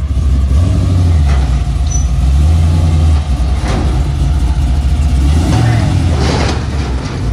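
A truck engine running with a steady low rumble, with a few brief rushing sounds over it.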